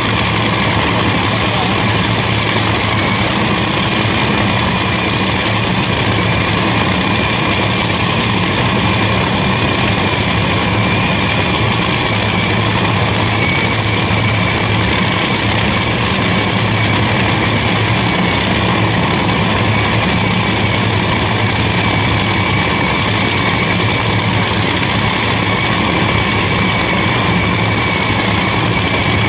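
An engine running steadily at idle, with no change in pitch or level.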